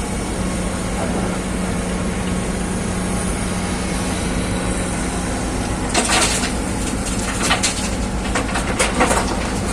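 Excavator's diesel engine running steadily, with a run of sharp clattering knocks starting about six seconds in.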